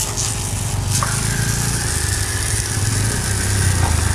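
12 V electric diaphragm water pump running with a steady low hum and fast pulsing while the spray-gun trigger is held open, its jet of water hissing against a muddy car tyre and alloy wheel.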